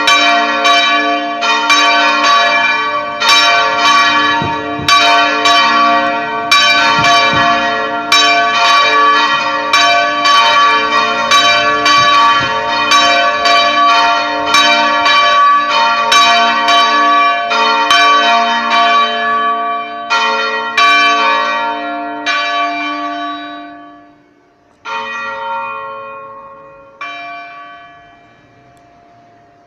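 Church tower bells ringing, struck in a quick, steady run about once or twice a second. The strikes thin out and stop, and the last two ring out and fade away.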